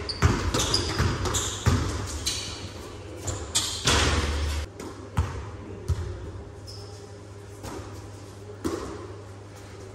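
Indoor basketball game: the ball bouncing on the court and sneakers squeaking on the floor, echoing in a large sports hall. About four seconds in, a shot hits the rim with a loud clang. After that it goes quieter, with a few scattered knocks.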